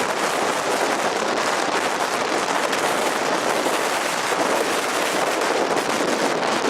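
Strong wind blowing hard across the microphone: a loud, steady rush with a rough, crackling texture.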